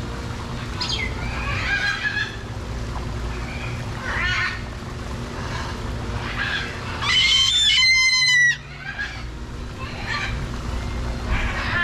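Macaws calling: a string of short, harsh squawks, with one louder, clearer-pitched call lasting over a second about seven seconds in.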